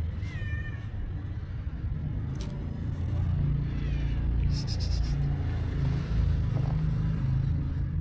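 Stray cat meowing: a short meow just after the start and a fainter one about four seconds in, over a steady low rumble.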